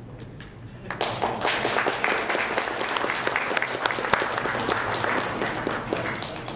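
Audience applauding, a dense patter of many hands clapping that starts suddenly about a second in and dies away near the end.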